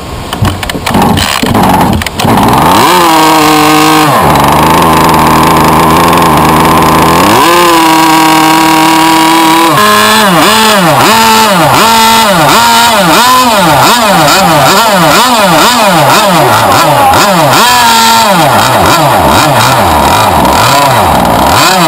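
Small two-stroke RC boat engine catching about two seconds in, then revved: held high, dropped to a steady low speed, brought back up, blipped up and down about once a second, and held high again near the end. It is being tuned on its carburettor needles and is probably still running a little rich.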